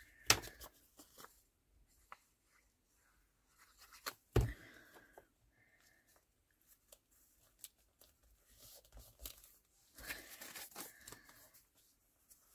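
Paper scraps being torn and handled, in a few short scratchy tears with sharp clicks among them and quiet gaps between.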